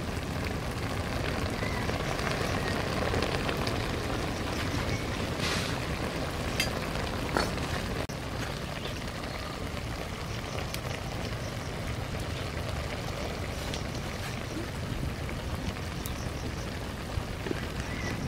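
Broth simmering and sizzling in a steel wok over a wood fire, a steady hiss with a few sharp pops a few seconds in.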